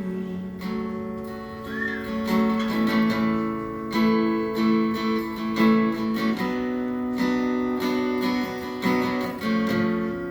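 Acoustic guitar playing a slow accompaniment of held chords between sung lines of a ballad.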